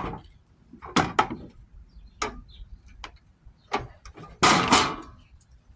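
Scattered clicks and knocks of a battery charger's case and parts being handled as it is taken apart, with a louder clatter about four and a half seconds in.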